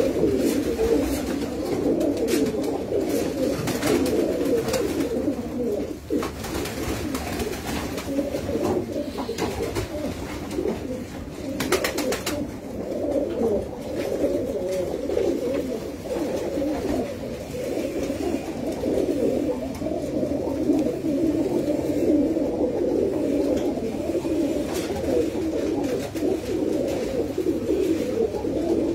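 Many domestic pigeons cooing together in a loft, a continuous low chorus.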